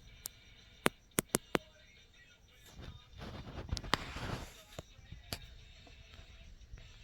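Handling noise: a few sharp clicks in the first second and a half, a rustle of handling in the middle, and a couple more clicks later, as of packaged diecast cars being picked up and moved.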